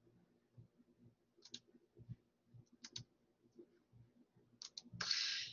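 Faint computer mouse clicks, a few scattered over several seconds, some in quick pairs. A short hiss follows near the end.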